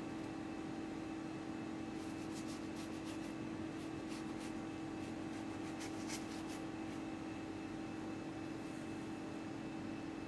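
Serrated knife sawing through a sheet of baked ladyfinger sponge on a wooden board: a run of light, crisp scratching strokes from about two seconds in until about seven seconds, over a steady low hum.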